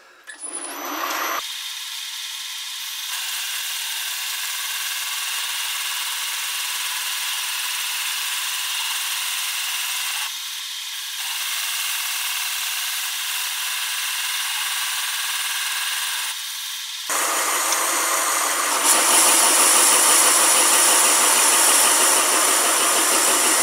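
Home-built lathe starting up about a second in and running with a steady whine while a parting tool cuts a ring off a cast aluminium blank. The sound dips briefly twice, then turns louder and rougher a few seconds before the end as the cut bites harder.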